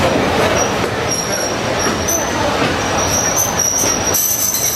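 Heritage railway train pulling slowly out along a platform, heard from a carriage window: steady running noise of the carriages, with high-pitched wheel squeal on the rails that comes and goes and grows stronger near the end. Voices of people on the platform are mixed in.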